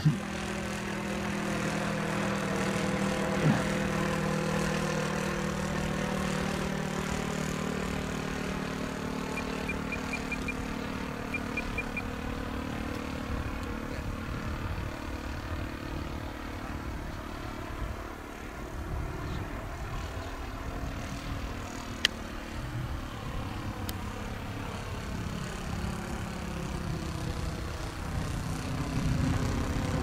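OS 95 four-stroke glow engine of a model de Havilland DH.60 Gipsy Moth biplane running steadily in flight. The drone is strongest for the first several seconds, then grows fainter as the plane moves off.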